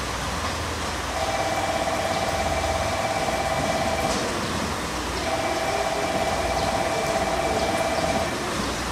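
KiHa 126 diesel railcar rolling slowly at low power, a steady low rumble. Over it a steady high tone sounds twice, each about three seconds long with a one-second gap, and is the loudest thing heard.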